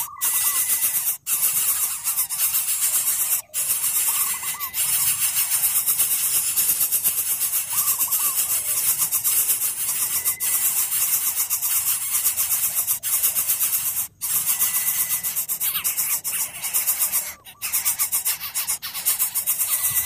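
Greater coucal nestlings begging: a loud, continuous rapid rasping, with brief higher notes every few seconds.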